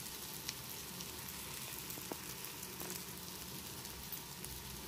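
Rugda mushroom and tomato masala sizzling steadily as it fries in a steel kadhai, with a couple of faint clicks.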